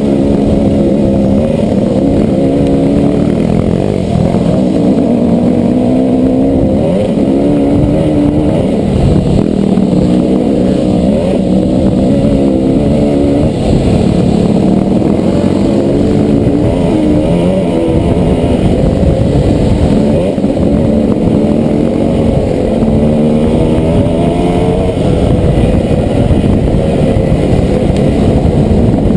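Dirt bike engine running on the trail, its revs rising and falling repeatedly as the throttle is worked.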